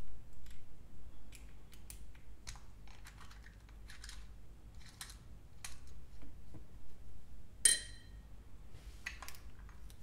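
Small machined aluminium parts being handled and fitted together: scattered light clicks and scrapes of metal on metal, with one sharp, ringing metallic clink a little past two thirds of the way through.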